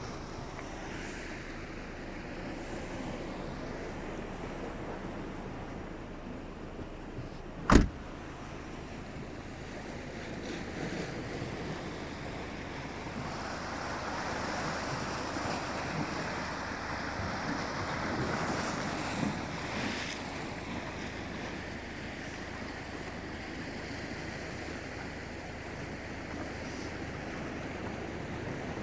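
Atlantic Ocean waves washing ashore with wind, swelling louder for several seconds in the middle. A single sharp knock about eight seconds in.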